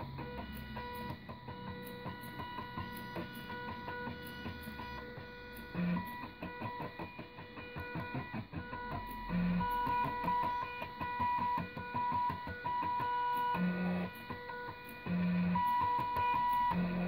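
Stepper motors of salvaged DVD-drive sleds whining and ticking as they drive a pen plotter, with the whine growing louder in stretches as the head moves. Short low buzzes come every few seconds.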